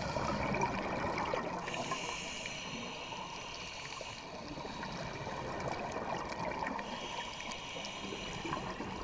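A scuba diver's breathing through a regulator, heard underwater: bubbling and gurgling of exhaled air, coming and going in slow cycles a few seconds long, over a constant fine crackle.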